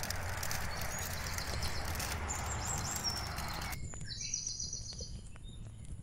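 Birds chirping over a steady rushing background noise. The noise cuts off suddenly about four seconds in, leaving only the chirps and a few light clicks.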